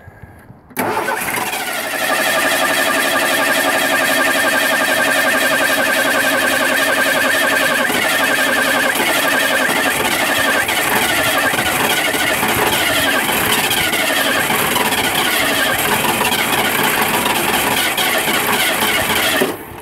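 Starter motor cranking the 232 cubic-inch V6 of a 1982 Ford F-100, fed by a rebuilt 2150 carburetor, for about nineteen seconds without the engine firing. It starts suddenly under a second in and cuts off sharply near the end.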